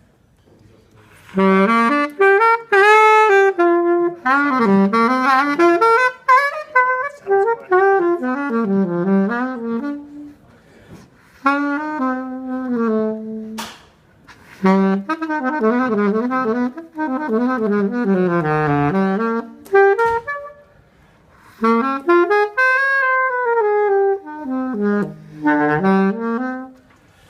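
Saxophone played through a 3D-printed mouthpiece: a run of short melodic phrases with brief pauses between them, starting about a second in.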